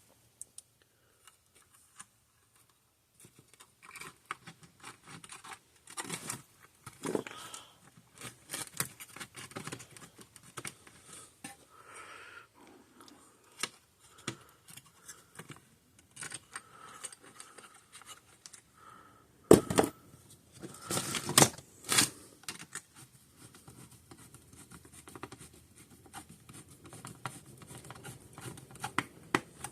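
Screws being handled and driven back into the plastic case of a Parmak Magnum 12 fence charger: irregular small clicks, scrapes and rattles, with two louder knocks about twenty seconds in.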